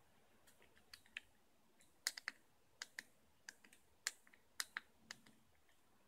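Fidget cube being fiddled with by the fingers: a run of small, sharp plastic clicks at an irregular pace, some in quick pairs and threes, more than a dozen in all.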